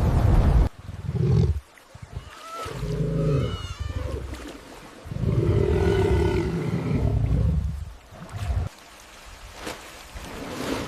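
A lion roaring in several calls, the longest lasting about three seconds. A loud rush of noise cuts off about a second in.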